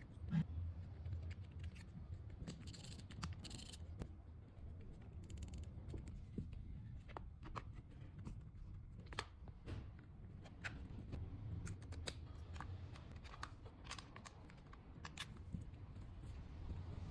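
Scattered light clicks, taps and scrapes of small tool parts being handled, over a low steady hum.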